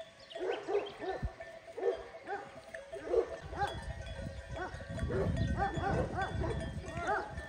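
Many short animal calls overlapping, each rising and falling in pitch, several a second, with a low rustling rumble from about five seconds in.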